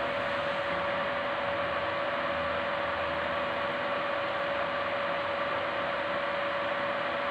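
Laser marking machine running idle with a steady fan hiss and a constant mid-pitched hum, its red guide beam on but not yet marking.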